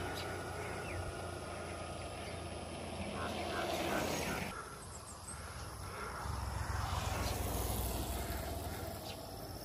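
Mountain bike rolling past on an asphalt road: its tyre and drivetrain noise swells and drops off sharply about four and a half seconds in. A steady low rumble runs under it, with a few faint chirps.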